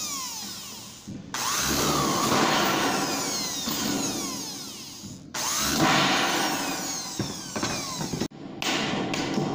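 Corded electric drill boring through a thin sheet-metal gutter, in two long runs with a short break about 5 seconds in. The bit squeals on the metal in whistles that slide down in pitch. A few quick clicks follow near the end.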